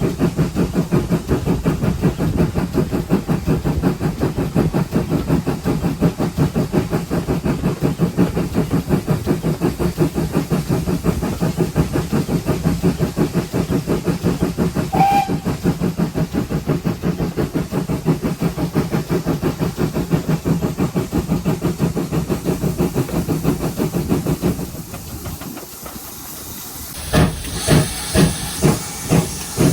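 Steam locomotive 7714, a pannier tank, running with a fast, steady rhythm of exhaust beats and rail noise. There is a brief short squeak about halfway through. Near the end the sound drops away for a couple of seconds, then returns as a few loud, evenly spaced hissing steam beats.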